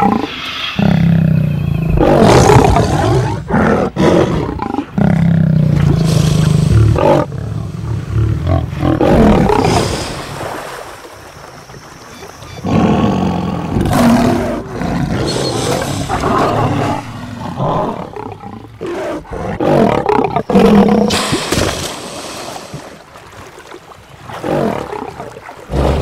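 Lions growling in repeated loud bouts of a few seconds each, with quieter gaps between.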